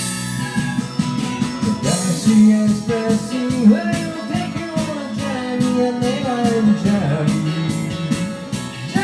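Rock band playing an instrumental break, a bending lead melody over drums and bass.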